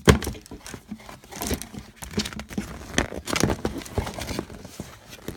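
Packaging being rummaged through by hand: irregular crinkling and rustling of wrapping and a cardboard box, with a sharp knock about the start.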